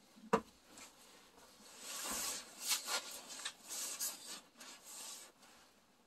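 A sharp knock as a glass French press coffee maker is set down on a wooden countertop, followed by a few seconds of irregular rubbing and scraping handling noises with small clicks.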